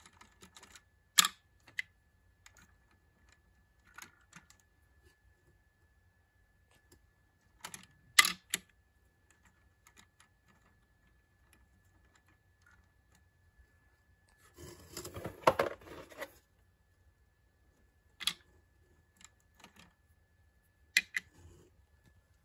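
Fingers handling plastic toy engines close to the microphone: scattered sharp plastic clicks and taps, a few of them loud, with a short burst of scuffing and rattling in the middle.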